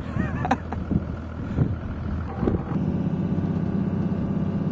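Vehicle engine running, settling into a steadier, louder note about three seconds in.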